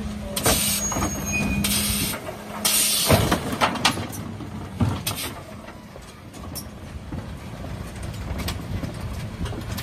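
Refuse truck's Zoeller bin lifter tipping a wheelie bin into the hopper: a steady hydraulic hum for the first two seconds, with the plastic bin knocking and clattering against the lifter several times, loudest about three seconds in. After that the truck's engine idles more quietly.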